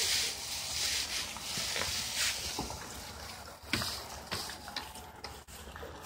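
Plastic leaf rake dragging and scooping through a pile of dry fallen leaves on grass: a rustling, scraping noise that swells with each stroke.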